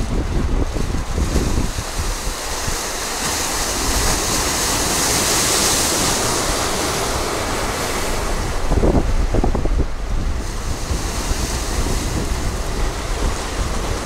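Mediterranean waves breaking and washing over rocks, with a big wave's hiss swelling through the middle. Wind buffets the microphone in gusts near the start and again about nine seconds in.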